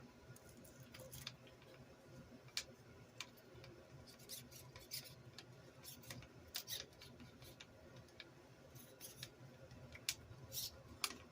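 Small RC car parts and hand tools being handled during a repair: scattered faint clicks and light scraping of plastic and metal, with a low steady hum underneath.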